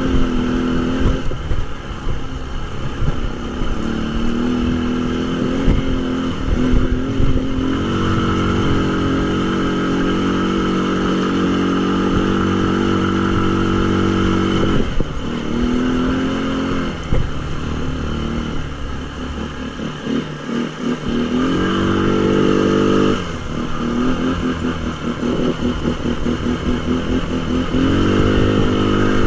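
Tao Tao 200cc 2x4 ATV engine running under throttle. Its pitch rises and falls as the throttle is worked, with a steady high-rev stretch about a third of the way in and several quick drops off the throttle (about a second in, around the middle and past two-thirds) before it picks up again.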